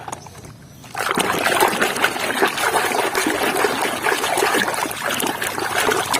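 Water trickling and splashing while a toy is rinsed. It starts about a second in and cuts off suddenly at the end.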